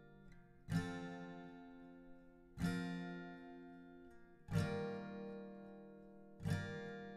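Background music: acoustic guitar chords strummed about every two seconds, four times, each chord left ringing and slowly fading.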